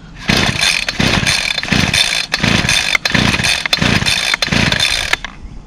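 Small two-stroke string trimmer engine running roughly without a working primer, surging and sagging about every three quarters of a second, then dying a little after five seconds in.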